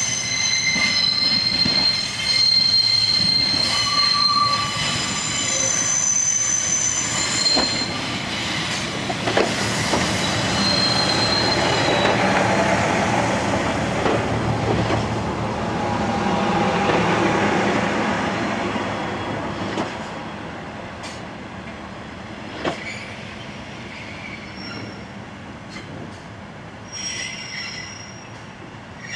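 Steel wheels of a Pacer diesel railbus squealing on curved track: several high, steady squeal tones over a running rumble. Partway through, the squeal gives way to a louder rumble of a train close by, which fades to quieter running with a few sharp clicks near the end.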